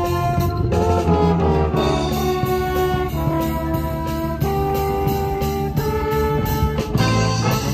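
School wind band playing live: trumpets and trombones lead with held notes that change about every second, over drums keeping a steady beat.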